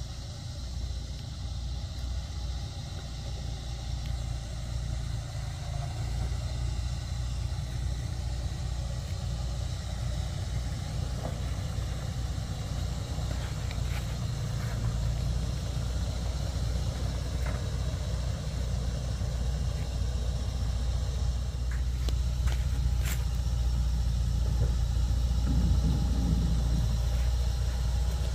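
Toyota 105 Series LandCruiser crawling slowly over a rutted dirt track in low range, its engine a low rumble that grows steadily louder as it approaches. A couple of sharp clicks or knocks come near the end.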